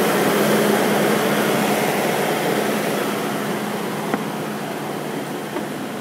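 Steady hum and rush of machinery running, with a constant low tone throughout, easing slightly in level toward the end; a small click about four seconds in.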